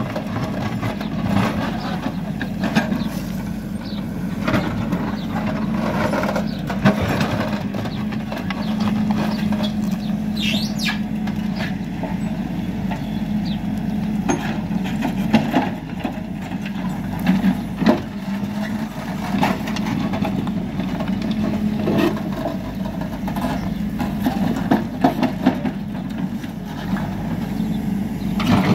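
Hidromek K4-series backhoe loader's diesel engine running steadily under digging load, with frequent sharp knocks from the backhoe bucket and arm working in the stony soil.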